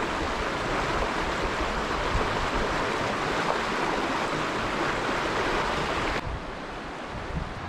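River water rushing steadily in a shallow mountain stream, a constant even hiss that suddenly drops to a quieter level about six seconds in.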